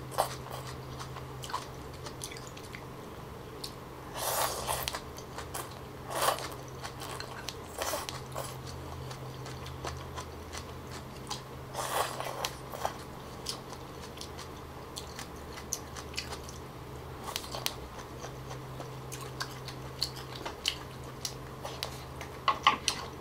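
Close-miked eating: rice-flour bánh canh noodles slurped in from chopsticks a few times, with chewing and small wet mouth clicks in between. A steady low hum runs underneath.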